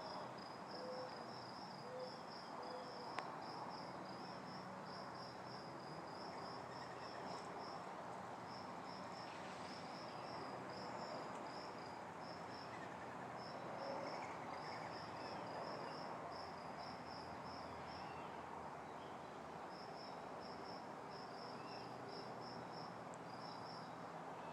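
Crickets chirping, a high pulsed trill repeating in runs with short breaks, over a faint low hum.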